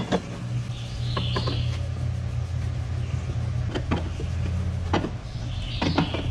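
A steady low hum, with a few short metallic clicks and scrapes from a hand tool fastening a metal intake grate onto the jet-drive intake of a fibreglass hull.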